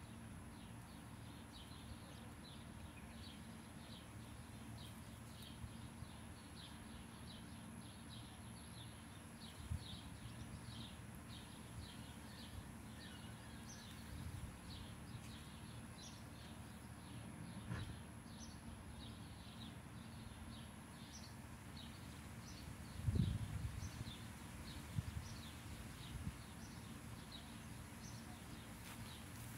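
A small bird chirping over and over, about two short high chirps a second, over a steady low outdoor rumble. A low thump about 23 seconds in.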